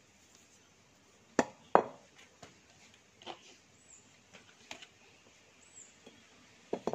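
Metal parts of a submersible pump motor knocking and clinking as the cast end bush is handled and set down against the pump body: two sharp knocks a little over a second in, lighter taps after, and a quick double knock near the end.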